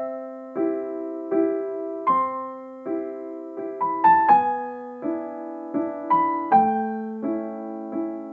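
Gentle piano music: soft chords struck about every three-quarters of a second, each ringing and fading, with a quicker run of higher notes about four seconds in.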